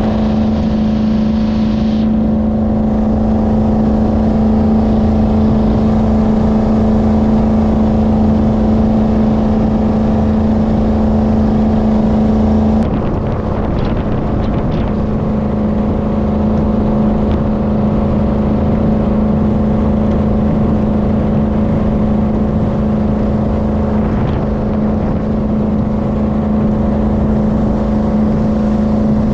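Jet boat engine running steadily while the boat is underway. The engine note holds even, with a brief shift and slight drop in level about thirteen seconds in.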